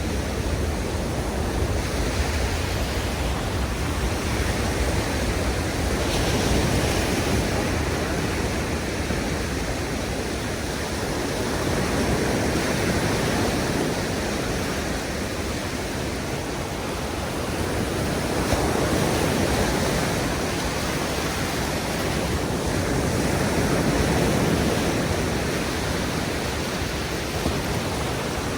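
Ocean surf breaking and washing on a sandy beach, a continuous rushing noise that swells and eases every five or six seconds as waves come in.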